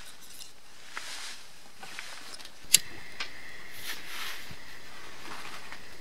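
Disposable lighter flicked with one sharp click a little under three seconds in, followed by a thin steady tone while it is held to wood shavings to light a fire. A few faint small clicks come before it.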